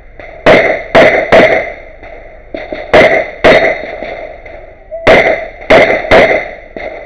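Pistol shots from an STI TruBor compensated 9mm Major competition pistol fired in rapid strings: about eight sharp cracks in three quick groups of three, two and three, with short pauses between groups.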